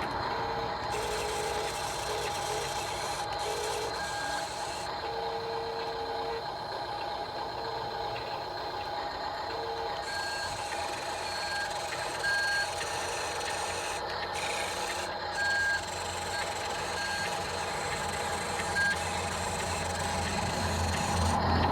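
Short electronic beeps at a few different pitches, coming irregularly, over a steady hum.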